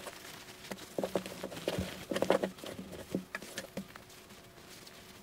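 Hands working a cotton bag and its lining: a run of soft, irregular rustles and light clicks as the fabric is pushed and smoothed, thinning out about four seconds in.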